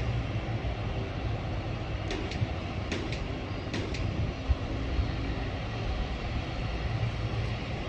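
Twin jet engines of a Cathay Pacific widebody airliner giving a steady low rumble as it rolls along the runway, with a few faint short high clicks about two to four seconds in.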